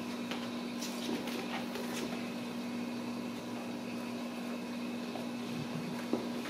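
A steady low hum with room noise, over which come a few faint taps and scuffles from kittens playing on a tile floor; one sharper tap comes near the end.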